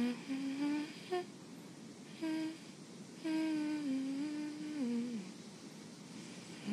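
A voice humming a slow tune in short phrases with pauses between, the longest phrase coming about halfway through and ending on a falling note.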